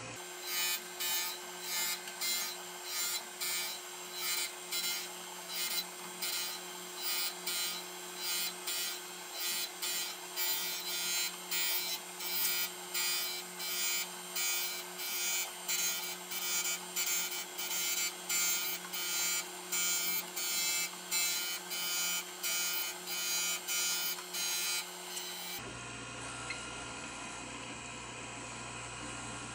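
Taft-Peirce surface grinder's wheel grinding the vise jaws under flood coolant on a cut of about a thousandth and a half: a hissing grind that pulses about one and a half times a second over the steady hum of the spindle. The grinding stops abruptly near the end, leaving the steady hum of the machine.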